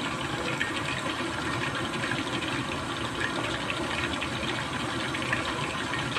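Breaded chicken fillet deep-frying in hot oil in a stainless steel pot: a steady sizzle with fine, constant crackling.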